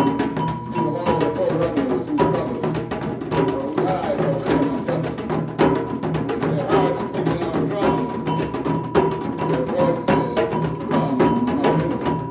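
Live percussion music: drums struck in a dense, fast pattern, with a wavering melody line over them.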